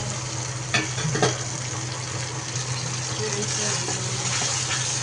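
Fish frying in hot oil in a pan, a steady sizzle, with two sharp utensil knocks about a second in, over a steady low hum.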